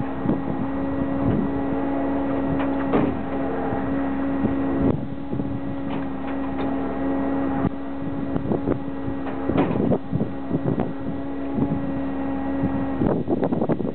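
Wind buffeting the microphone in uneven gusts over a steady machine-like hum, with a few brief knocks scattered through.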